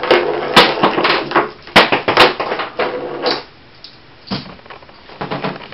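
Shotgun shells being pulled out of the elastic loops of a webbing pouch tray and dropped onto a table: a run of sharp knocks and rustling handling, loudest in the first two and a half seconds, then a few softer knocks near the end.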